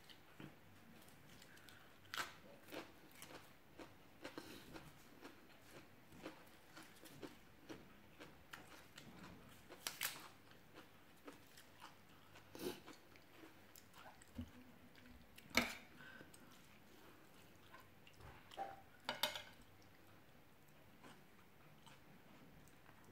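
A person chewing and biting into raw vegetables, quietly, with scattered sharp crunches. The loudest crunches come about ten seconds and fifteen and a half seconds in.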